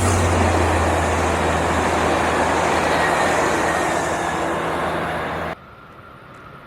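Metrolink EMD F59PH diesel locomotive running past with a steady deep engine drone and wheels rumbling on the rails. About five and a half seconds in it cuts off suddenly to a much quieter background.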